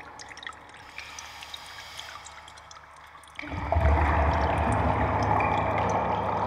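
Faint scattered drips and clicks over a low hiss. About three and a half seconds in, a much louder, dense water-like rushing noise with a deep rumble beneath sets in and holds.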